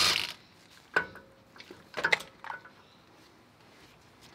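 A few sharp metallic clinks and taps of hand tools and loose nuts and washers being handled during hub disassembly, after a power tool's whine cuts off right at the start.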